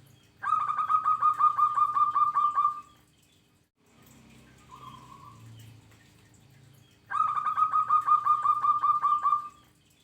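Perkutut (zebra dove) singing: two bouts of rapid staccato coo notes, about six notes a second, each bout lasting a little over two seconds.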